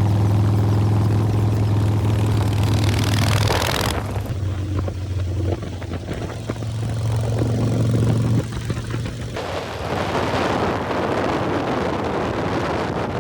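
Motorcycle engines running in several short clips cut together: a steady deep engine note for about four seconds, then a different engine sound, and a rushing engine-and-air noise in the last few seconds.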